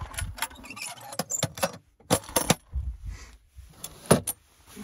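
Small hard objects being handled: an uneven run of sharp clicks, knocks and rattles in several clusters, with low rumbles between them.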